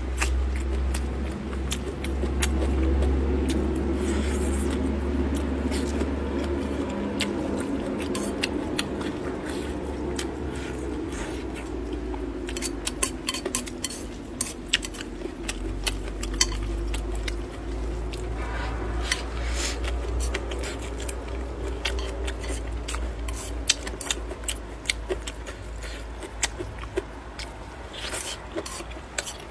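Eating from a bowl with chopsticks: many sharp clicks and scrapes of the chopsticks against the bowl, along with the sounds of chewing. Under them runs a low steady rumble, heaviest in the first several seconds.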